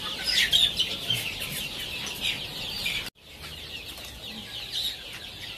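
A flock of deshi chickens clucking and calling over one another in a crowded coop. The sound cuts out for a moment about three seconds in, then the calling resumes a little quieter.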